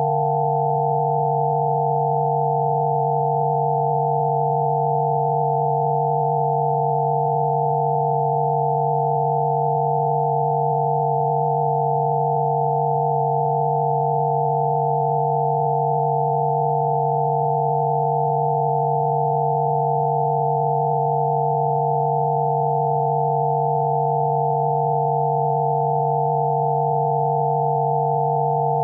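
Several synthesized sine tones of Rife frequencies sounding together, one low and a few higher, held perfectly steady without any change.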